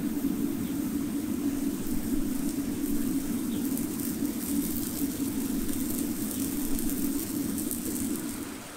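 Hot horseshoe pressed against a horse's hoof wall in hot fitting, the burning hoof horn sizzling and crackling as it is seared to seat the shoe. Under it a steady low hum, the loudest sound, which fades out near the end.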